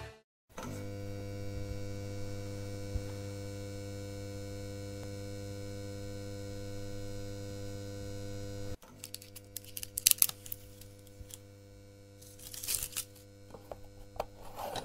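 A steady electrical hum with many overtones, the sound-effect hum of an old projector, which cuts off suddenly about nine seconds in. Scattered crackles and clicks follow over a fainter hum.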